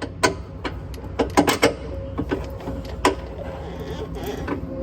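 Sharp metallic clinks and knocks of hand tools and a suspension bolt being handled on a car's front suspension, several in a quick cluster near the middle, over a steady low hum. A faint steady whine joins about halfway through.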